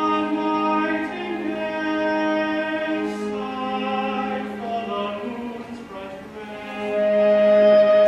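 A male tenor singing a slow operetta ballad in held notes over an orchestral accompaniment with bowed strings. It swells louder near the end.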